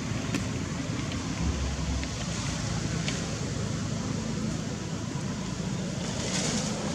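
Steady outdoor background noise with a fluctuating low rumble and a few faint clicks.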